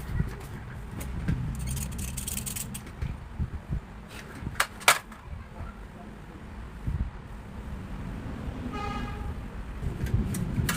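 A short vehicle horn beep about nine seconds in, over a steady low rumble, with a couple of sharp clicks a few seconds earlier.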